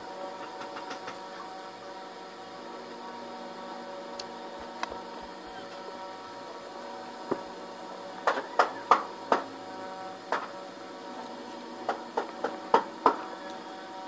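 Eating sounds close to the microphone while eating by hand: a run of sharp clicks and taps in two clusters, a few seconds apart, over a steady background hum.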